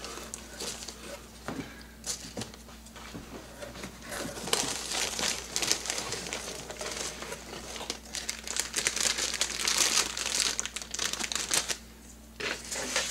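Hands rummaging through foam packing peanuts in a cardboard box and crinkling a clear plastic bag, with scattered small clicks. The rustling grows much denser about four seconds in and dies down near the end.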